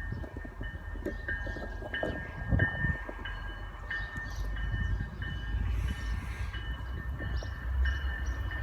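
MBTA commuter train hauled by an F40 diesel locomotive rolling into the station: a low rumble with irregular wheel knocks. A bell rings about twice a second throughout.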